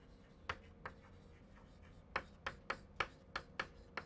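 Chalk tapping and scraping on a blackboard as words are written by hand: a run of sharp, irregular taps with a pause of about a second partway through.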